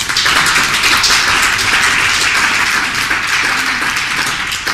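Audience applauding, dense steady clapping that eases off a little near the end.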